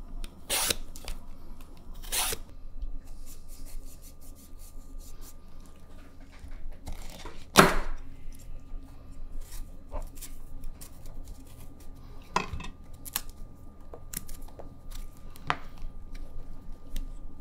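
Hand vegetable peeler scraping the skin off eggplants in short strokes, with soft knocks on a wooden cutting board. A sharper knock, the loudest sound, comes just under halfway through.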